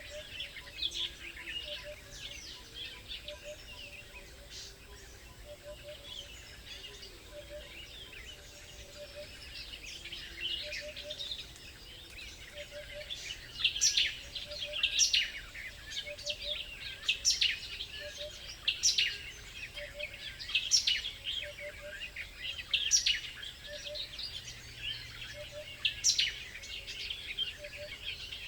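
Several small birds chirping and calling. From about halfway in, the calls get louder, with one sharp call every second or two over a busy chatter.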